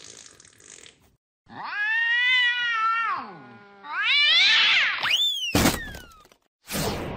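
Cat yowling twice in long rising-and-falling wails, after a hiss of flame that fades out in the first second. Two quick falling tones and two loud noisy bursts follow near the end.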